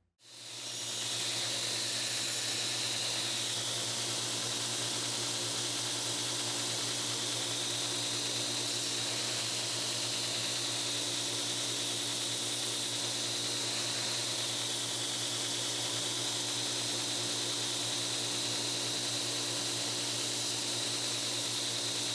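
Belt grinder running steadily while a steel knife blade, held in a clamp-on jig, is ground against the belt: a constant hiss of grinding over the motor's hum, with the higher grinding tone wavering slightly as the blade is worked. The sound fades in just after the start.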